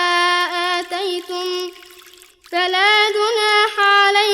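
Melodic Quran recitation: a single high voice chanting long drawn-out notes, with a short breath pause about two seconds in before the chant resumes.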